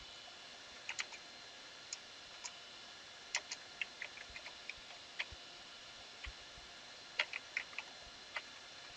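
Computer keyboard keys clicking in irregular runs as a command is typed, faint over a steady hiss.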